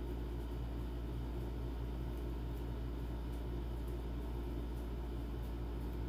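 A steady low machine hum with a faint even hiss, unchanging throughout.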